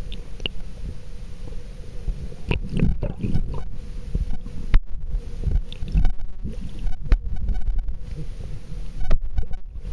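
Muffled sound through an underwater camera in a river: a low rumble of moving water with irregular knocks and thuds from the camera being handled and bumped among the trout.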